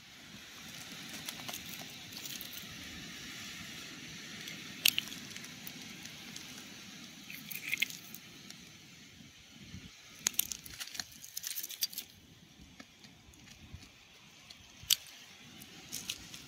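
Steady wind and surf noise on a pebble beach, with a few scattered sharp clicks of shells and stones knocking together as the beach drift is picked through.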